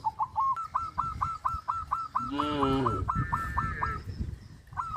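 A bird calling in a fast run of short, high, repeated notes, about six a second, which breaks off after about three seconds and starts again near the end. A lower, drawn-out animal call comes about halfway through.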